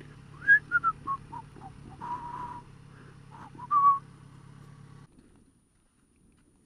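A person whistling a short tune close to the microphone: quick notes stepping downward, a held note, then a rising note. Under it a motorcycle engine idles with a low steady hum that cuts off about five seconds in.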